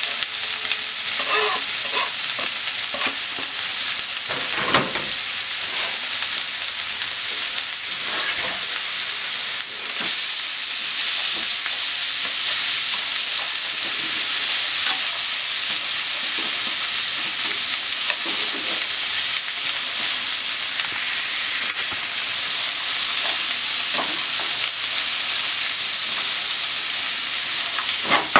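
Diced chicken and onion sizzling in oil in a nonstick frying pan, a steady hiss with scattered light scrapes and taps as they are stirred with a spatula and chopsticks.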